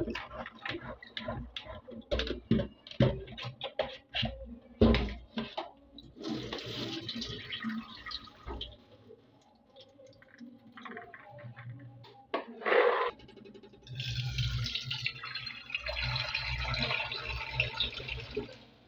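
Hands stirring and rubbing wet green peas in a plastic colander under a kitchen tap, a dense clatter of small splashes and clicks, with the tap running for a couple of seconds. Near the middle, water is tipped out of the bowl into a stainless steel sink with one loud splash, and then the tap runs steadily into a pot, filling it.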